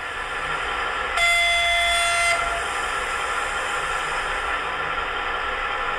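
Sound decoder of a PIKO H0 model of the DB class 364 diesel shunting locomotive, playing its diesel engine running steadily through the model's small loudspeaker. About a second in comes one single-pitched horn blast lasting just over a second.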